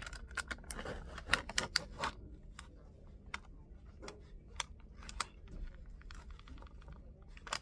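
Typing on a computer keyboard: a quick run of key clicks for about two seconds, then scattered single keystrokes.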